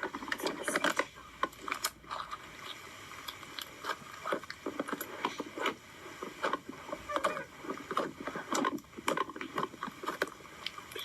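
Slime being squeezed, poked and stretched by hand, making irregular wet squishes and small crackling pops.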